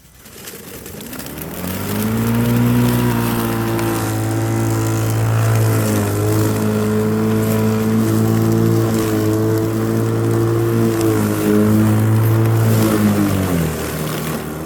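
Ryobi 18V cordless lawn mower's motor and blade spinning up over about two seconds, then running with a steady hum while it cuts and picks up leaves at its lowest cutting height. The pitch sags briefly a few times under the load of the leaves, and near the end it winds down before spinning back up.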